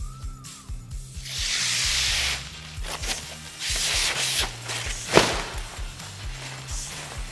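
Protective plastic film being peeled off a polycarbonate roof panel: the film rustles and crackles in two long pulls, with a sharp snap about five seconds in. Background music with a steady beat plays under it.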